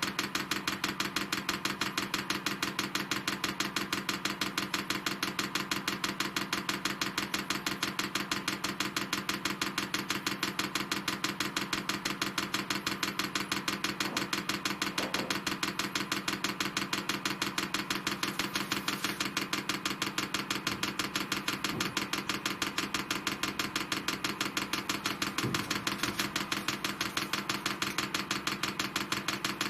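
Fuel dosing pump of a Chinese diesel air heater clicking at a fast, even rate, with a steady hum underneath. It is priming diesel through the fuel line.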